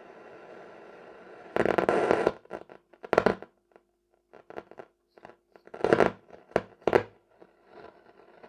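Telefunken Opus 8 tube radio's loudspeaker giving a steady hiss, then loud bursts of crackling static that cut in and out abruptly, with a faint hum in the gaps. The owner puts the bad sound down to dirty switches.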